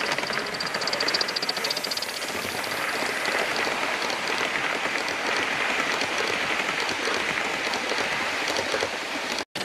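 G-scale model passenger train running past close by: a steady rumble and clatter of wheels on the track, with fine rapid ticking. The sound cuts out for a moment near the end.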